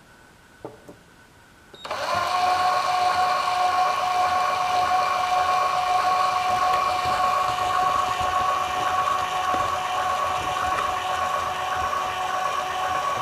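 Electric linear actuator on a solar tracker's elevation axis starting up about two seconds in and running with a steady whine as it extends the arm toward its maximum position.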